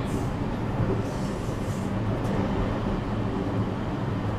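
JR West 321 series electric train running, heard from inside the car: a steady rumble of wheels on rail under a constant low hum.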